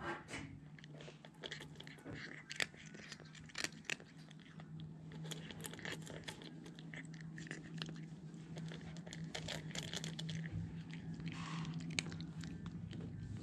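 A kitten crunching dry kibble from a stainless steel bowl: irregular crisp crunches and chewing clicks, over a steady low hum.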